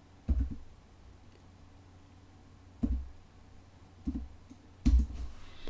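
A few separate clicks and taps on a computer keyboard and mouse, four clear ones spaced irregularly over several seconds, with quiet room tone between them.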